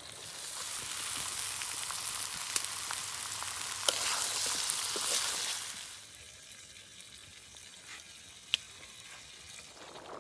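Food frying in hot oil in a two-handled karahi over a wood fire: a loud sizzle with scattered spattering ticks. About six seconds in it drops to a quieter hiss, with one sharp click later on.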